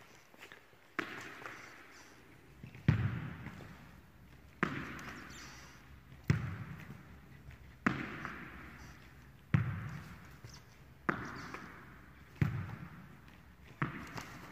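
A tennis ball tossed high and caught, nine sharp smacks about one and a half seconds apart, each followed by a long echo in a large sports hall.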